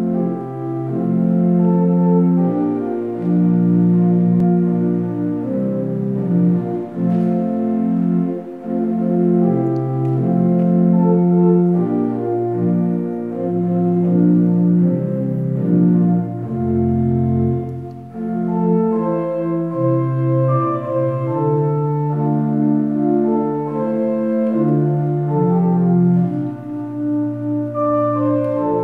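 Organ music: slow, sustained chords that change every second or two, with no percussion.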